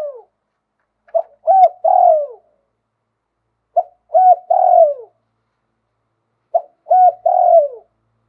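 Spotted dove cooing, repeating a three-part phrase three times: a short note, then two coos, the last one longer and falling in pitch.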